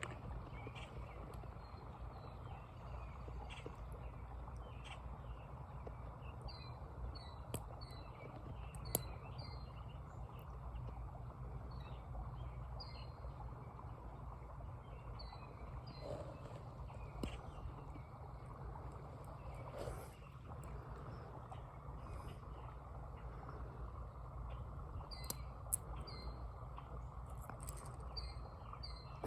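Outdoor ambience: small birds giving short chirps again and again over a steady low background rush, with a few faint clicks.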